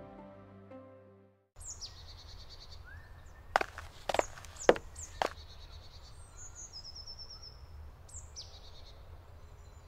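Background music fading out, then forest ambience with small songbirds chirping and singing. A few sharp knocks come between about three and five seconds in.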